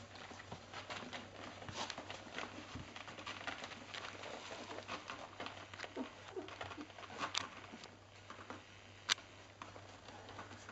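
Two-week-old Cardigan Welsh Corgi puppies nursing at their mother: a dense run of small clicking suckling sounds with a few faint squeaks. One sharp click about nine seconds in is the loudest sound.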